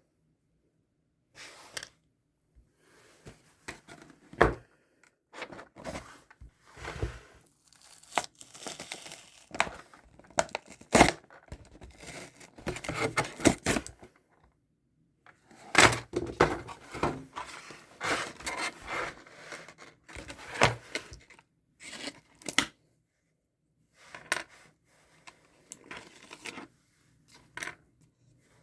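Paper or packaging being torn and crumpled by hand, in irregular rustling bursts with a few sharp clicks and short pauses, as items are unwrapped.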